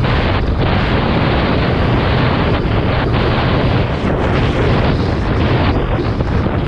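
Strong wind rushing over the microphone of a moving motorcycle, with the engine's steady low drone beneath it.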